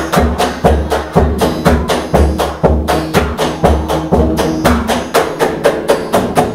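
Live percussion ensemble playing a steady, driving rhythm: deep drum strokes about twice a second under quick, sharp wood-like clicks and hand-drum hits.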